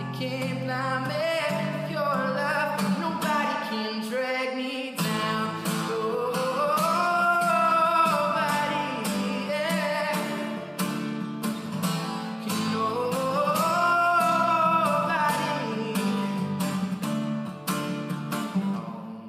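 Background song: a voice singing long notes that glide up and down over acoustic guitar.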